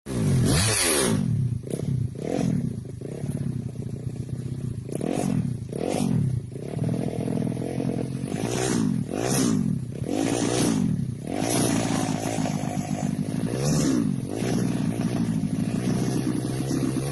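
An engine revved up and down over and over, its pitch climbing and dropping in about a dozen short swells.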